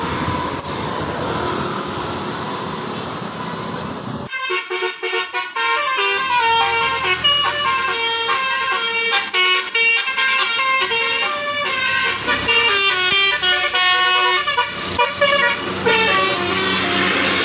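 Bus running with engine and road noise, then about four seconds in a telolet basuri horn starts playing a fast multi-note melody of horn tones that carries on to the end.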